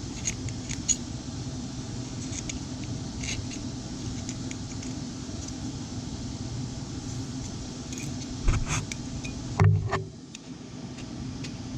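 Small metal chainsaw carburettor parts clicking and clinking as they are handled, over a steady electrical hum that drops away about ten seconds in.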